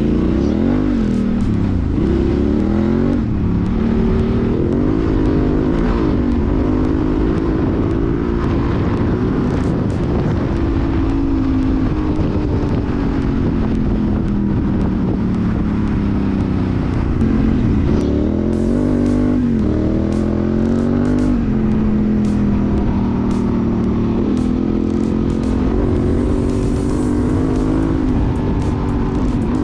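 Honda Transalp XL750's parallel-twin engine through a Mivv Dakar exhaust with an Arrow decat, pulling under way with the revs rising and falling; several quick drops and climbs in pitch come about two-thirds of the way in.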